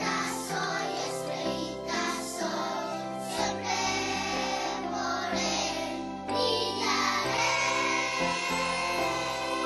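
Children's television theme song: voices singing, some of them children's, over an instrumental backing.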